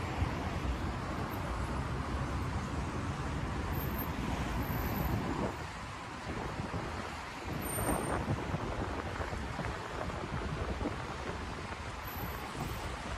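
Street traffic on a rain-wet avenue: steady hiss of tyres on the wet road mixed with engine noise, louder for the first few seconds and swelling again about eight seconds in as cars go by.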